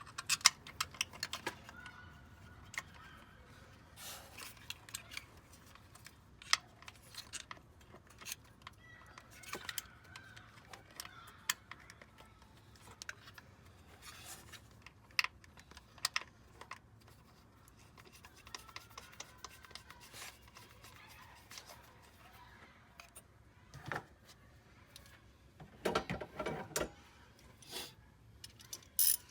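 Intermittent small clicks, clinks and rattles of hand tools and engine parts being handled during work on the ignition coil and spark plugs, with a denser burst of rattling about 26 seconds in.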